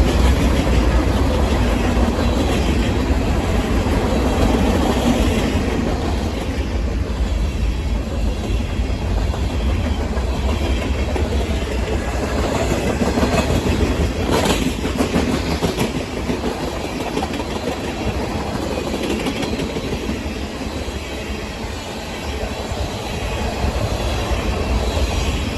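Freight cars of a Union Pacific manifest train rolling past steadily, with one brief sharp click about halfway through.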